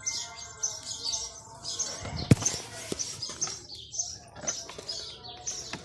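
Many small birds chirping continuously in quick, high, repeated calls. A single sharp knock sounds about two seconds in, with a lighter one just after.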